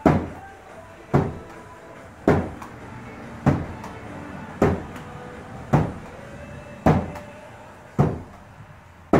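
A small ball thrown against wooden wall boards and caught, striking with a sharp knock about once a second, nine times in an even rhythm, each knock ringing briefly in the room.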